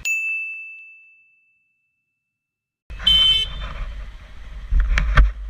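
A single high-pitched bell-like ding that rings and fades over about a second and a half, followed by dead silence. About three seconds in, loud road and vehicle noise cuts back in, with a short sharp tonal burst and two knocks near the end.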